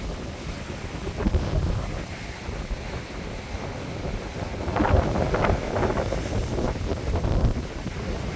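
Storm waves surging and breaking over a rocky shore, under heavy wind buffeting the microphone. A louder rush of surf comes about five seconds in.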